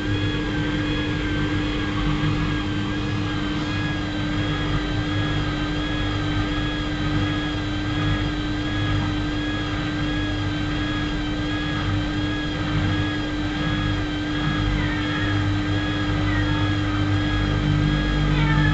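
Washing machine running steadily: a constant hum with a higher whine that wavers evenly up and down.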